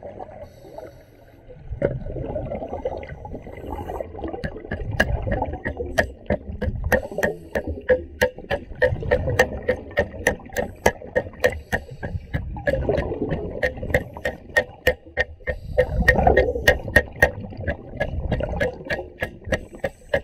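Underwater sound of a diver's exhaled breath bubbling in surges every few seconds, with a steady run of sharp clicks, about three a second, starting about five seconds in.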